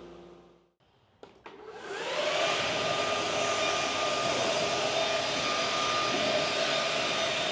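Two short clicks, then a motor-driven machine winds up, rising in pitch for about half a second, and settles into a steady running whine.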